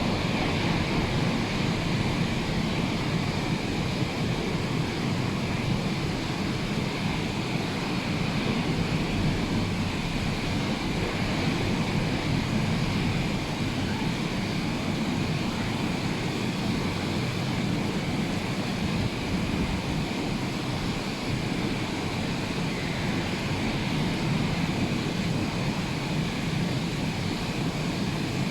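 Steady roar of rough sea surf, stirred up by a hurricane, with wind buffeting the microphone.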